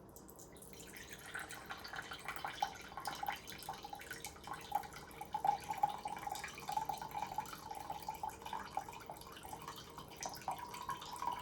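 Brewed coffee pouring from a Bodum Chambord glass French press into a cup in a steady trickling stream. Its pitch rises slightly near the end as the cup fills.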